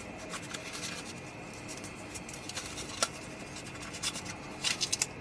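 Cardstock being folded and creased by hand: light paper rubbing and scraping with scattered taps, one sharp tap about three seconds in and a cluster of quick crinkly scrapes near the end.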